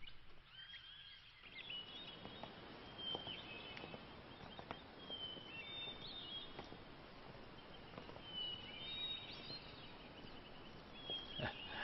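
Faint outdoor ambience: small birds chirping in short, high, scattered calls over a steady background hiss.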